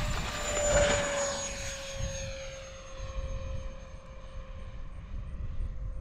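Freewing A-10 RC jet's twin electric ducted fans whining as it makes a low pass. The pitch drops slightly as it goes by, then the whine fades steadily as the jet climbs away.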